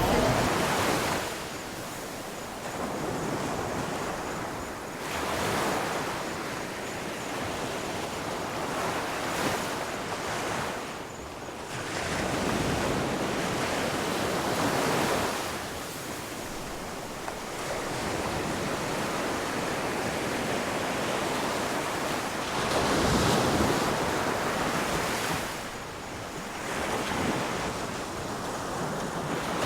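Ocean waves breaking on a shore: a rushing surf noise that swells and falls back every several seconds.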